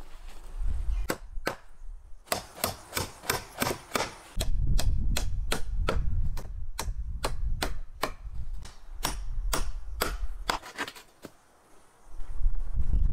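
A rapid series of sharp knocks, about three or four a second, as a tool strikes the wooden pole ladder's rungs. The knocks stop near the end, and a low rumble sits under them through the middle.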